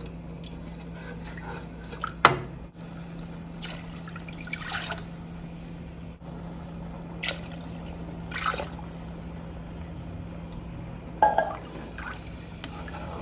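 A spatula stirring a thin liquid sauce in a nonstick wok, with intermittent sloshing swishes and a sharp knock against the pan about two seconds in. A steady low hum runs underneath.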